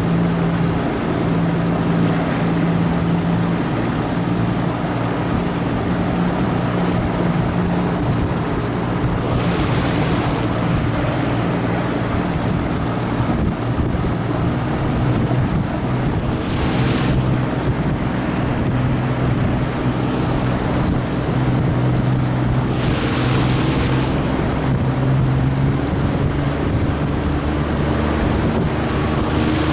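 Outboard motor running steadily, pushing a PVC inflatable boat along, with water rushing under the hull and wind on the microphone. Three short hissing bursts of water noise come about ten, seventeen and twenty-three seconds in.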